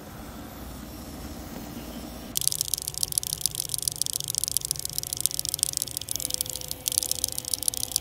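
Battery-powered toy cockroaches scuttling across a tabletop, making a rapid high-pitched rattling clatter that starts about two seconds in and briefly stops and restarts near the end.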